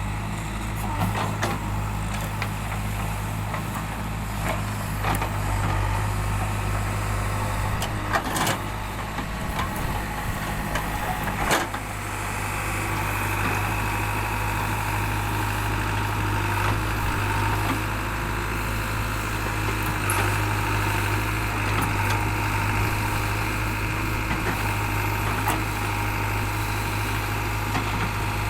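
Backhoe loader's diesel engine running steadily at work, with a few sharp knocks about a third of the way in; the engine note shifts a little just before halfway.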